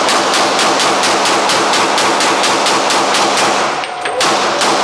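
Rapid handgun fire at an indoor range, about five shots a second in a steady string. It breaks off briefly near the end, then a few more shots follow.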